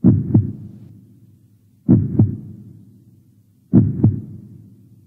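Heartbeat sound effect: three deep lub-dub double thumps about two seconds apart, each pair fading away before the next.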